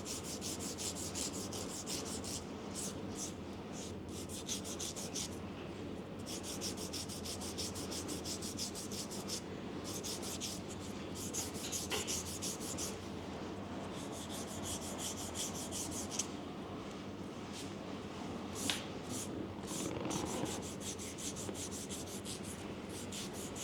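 Fast back-and-forth rubbing strokes, close to the microphone, in runs of a few seconds with short pauses between them. A single sharp click comes about two-thirds of the way through.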